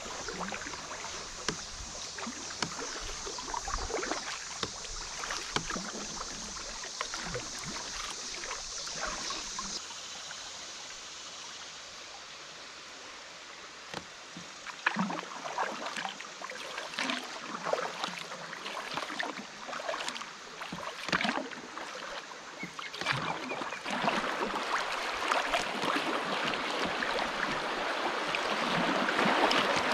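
Kayak moving down a shallow river: water splashing and lapping around the hull with frequent short paddle splashes. The water goes quieter for a few seconds about a third of the way in, then the rush of a riffle grows louder over the last few seconds as the kayak runs into broken whitewater.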